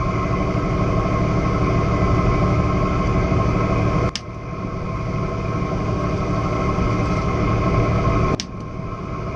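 Boat engine running steadily. Two sharp clicks come about four and eight seconds in, each followed by a brief dip in the engine sound.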